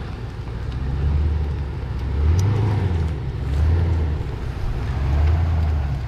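SUV engine revving in repeated surges, about every one and a half seconds, as the vehicle is driven through loose, soft beach sand.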